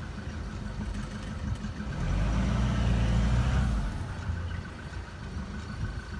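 Safari vehicle's engine running, revving up louder for about two seconds partway through and then easing back.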